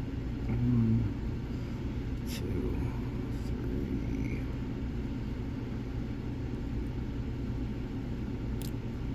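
A few faint, sharp clicks from lock picks working the pin stack of a Mul-T-Lock padlock as pins are set one by one, over a steady low background rumble.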